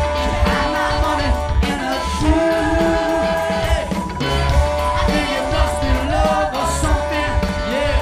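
Live band playing a song with a steady beat and bass, while women backing singers sing and clap along.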